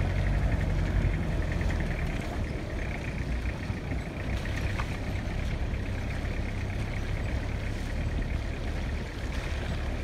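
Jeep engine running and tyres on a rough dirt and stone track, heard from inside the cabin as a steady low engine drone with road noise.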